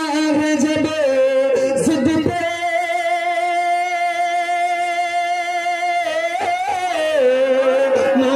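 A man singing a naat, an Urdu devotional praise poem, into a microphone. In the middle he holds one long steady note for about three and a half seconds, then moves on to a wavering melody.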